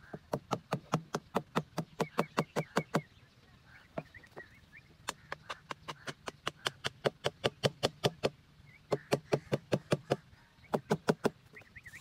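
A wooden stick being struck and driven into the ground: fast, evenly spaced knocks, about five a second, in three runs of a few seconds each with short pauses between. Faint bird chirps sound behind.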